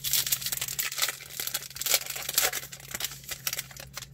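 Crinkling, crackly rustling of a freshly opened pack of football trading cards being handled, busiest in the first two and a half seconds and easing off near the end.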